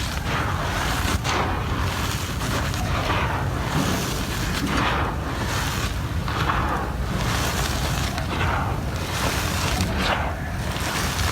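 Gritty cement crumbling and crushing in a series of crunches, about one a second, over a steady low rumble.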